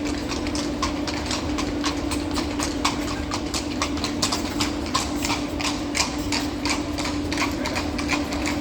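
Horse hooves clip-clopping on the street, a quick, even run of hoof strikes, over a steady low hum.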